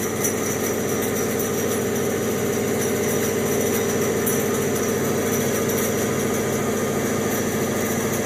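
17-inch bandsaw with a 1-inch Laguna Resaw King blade running freely with no cut, a steady even hum. The blade tension has just been tightened a little, and the saw runs quietly.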